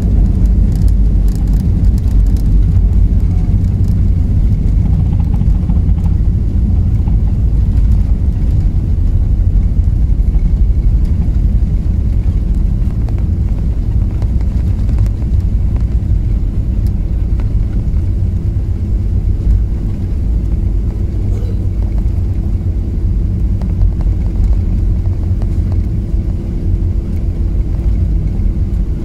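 Steady low rumble inside an airliner cabin as the plane rolls along the ground after landing, jet engine drone mixed with ground rumble. A steady hum joins in about halfway through.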